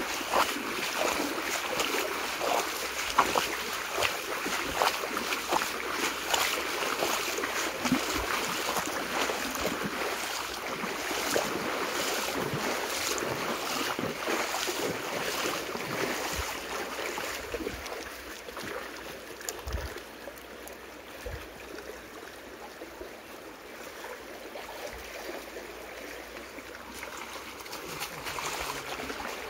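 Water splashing as people wade through a shallow, flowing muddy stream, over the steady rush of the water. The splashing is dense for the first half and eases off after about seventeen seconds, leaving mostly the quieter flow with an occasional splash, then picks up again near the end.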